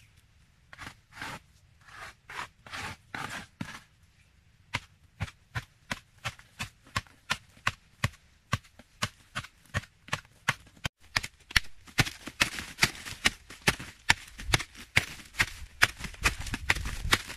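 Footsteps on dry dirt, then a short hand tool striking and chipping into a hardened earth wall: a steady run of sharp strikes about two to three a second, getting louder and quicker in the second half.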